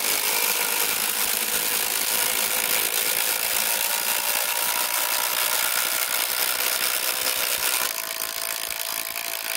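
Two cordless impact drivers, a Kobalt X.T.R. 24V and a Makita 18V, hammering together under load as they drive 6-inch TimberLOK screws into stacked 6x6 timbers: a loud, continuous rapid rattle of impacts.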